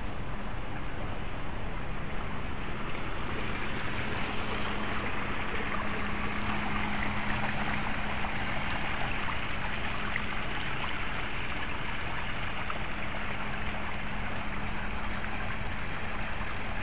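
Small rock waterfall of a garden pond, water spilling steadily over the stones and splashing into the pool.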